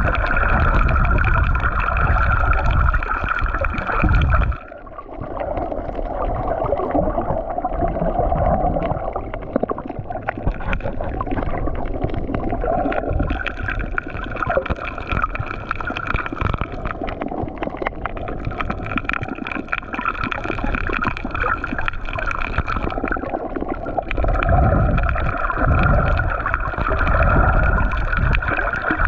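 Muffled underwater water noise around a GoPro swimming over a shallow reef: sloshing and rumbling, with a faint steady hum. The low rumble cuts out abruptly about four seconds in, then slowly returns and grows louder again near the end.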